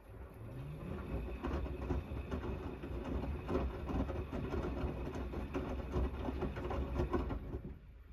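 Gorenje WNEI front-loading washing machine turning its drum during the main wash of a 90 °C cotton cycle: the motor whines up in pitch as the drum starts, then wet laundry and wash water slosh and thud irregularly inside the turning drum until it stops shortly before the end.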